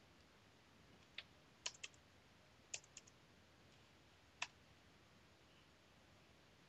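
A handful of separate computer keyboard keystrokes, sharp single clicks spread over the first four and a half seconds, over faint room hiss.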